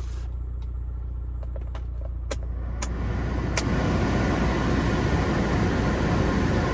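Car engine idling with a steady low hum while the air-conditioning blower pushes air out of the vents; after a few clicks, the airflow grows louder about three seconds in and then holds steady.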